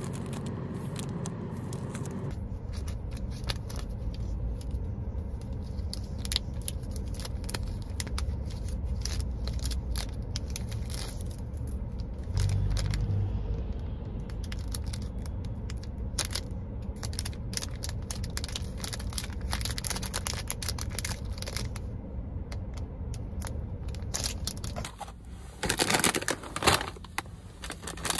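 Low steady rumble of a car's engine and road noise heard inside the cabin while driving, with scattered light clicks and ticks. Near the end come a few loud bursts of rustling.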